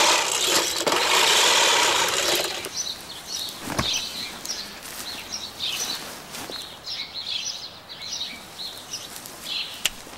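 A walk-behind push lawn mower whirring for about two and a half seconds, then cutting off abruptly. Songbirds chirp after that, with a single sharp click a little over a second after the mower stops.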